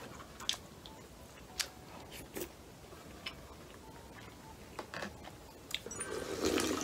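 Close-up eating sounds: scattered soft clicks of a plastic utensil on takeout containers and chewing, then slurping of ramen broth drunk straight from the bowl near the end.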